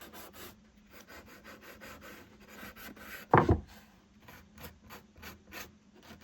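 Hand file rubbing along the rough edges of an MDF fixture in quick strokes, about three a second. One much louder thump comes about three and a half seconds in.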